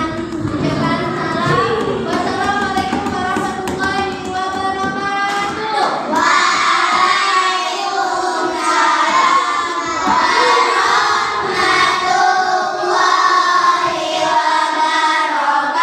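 Children singing a song, with held notes.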